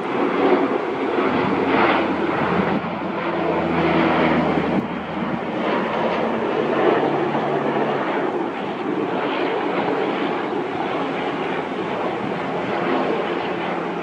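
Sikorsky S-64 Air-Crane twin-turbine helicopter flying by: steady rotor and engine noise, with a low drone showing between about 2 and 8 seconds in.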